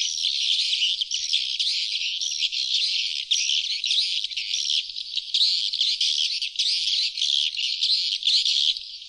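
Swiftlet lure-call recording: a dense flock of sriti (glossy swiftlets) twittering in many short, overlapping high-pitched chirps, with no low sound at all. It is the 'outside call' played to attract wild swiftlets to a nesting house.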